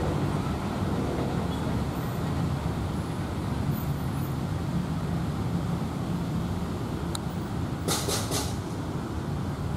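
Steady low rumble of vehicles, with three quick rasping bursts close together about eight seconds in.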